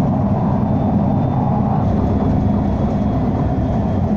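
Steady low rumble inside a Nottingham Express Transit tram's passenger saloon, holding an even level throughout.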